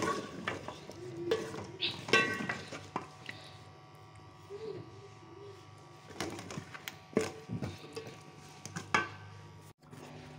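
A spoon clinking and scraping against a metal cooking pot while stirring potato chunks through thick tomato masala, in irregular knocks and scrapes with a quieter pause midway.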